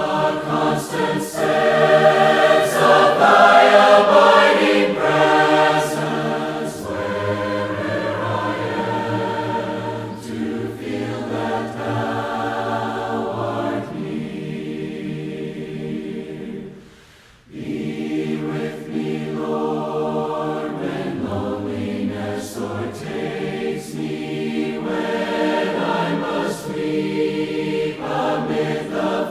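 Choir singing a hymn, with a short break between phrases just past the middle before the singing resumes.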